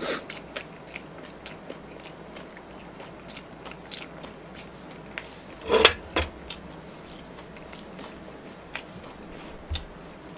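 Close-miked chewing and crunching of food, with many short sharp mouth clicks and one louder crunch about six seconds in.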